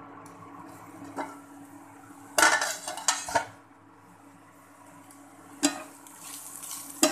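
A metal pan lid is lifted off a nonstick frying pan with a short clatter about two and a half seconds in. A spatula then scrapes once or twice through oyster mushrooms frying in the pan. A steady hum from an induction cooker runs underneath.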